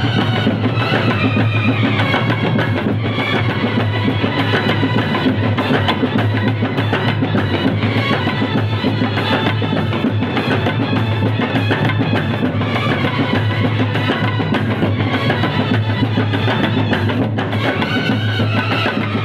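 Kerala bandset playing loudly and without a break. Side drums, a bass drum and pairs of large hand cymbals keep up a dense rhythm, and brass horns carry a melody over it.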